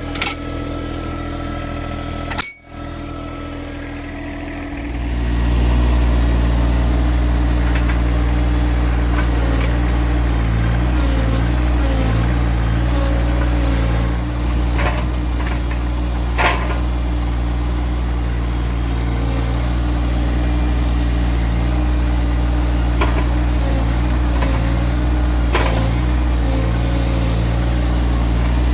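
Tractor engine running, brought up to a higher, steady speed about five seconds in, with a few sharp knocks or clanks over it.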